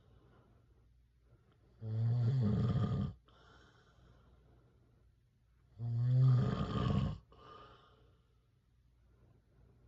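A man snoring in his sleep: two loud, drawn-out snores about four seconds apart, each followed by a softer breath.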